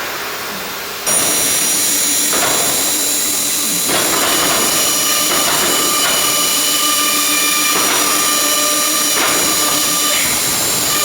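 CNC router (Blue Elephant 1325ATC) running, with its high-speed spindle giving a steady high whine over a hiss. It comes in abruptly about a second in, and further steady tones join about four seconds in.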